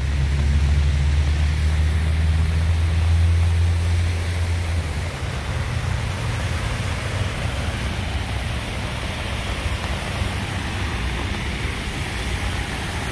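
A vehicle engine idling as a low steady hum that fades away about five seconds in, over a steady hiss of heavy rain and water on a flooded road.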